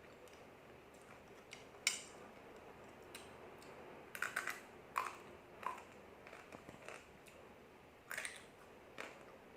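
Crisp crunching of fried mie lidi noodle sticks being bitten and chewed: a handful of sharp crunches spread unevenly over several seconds.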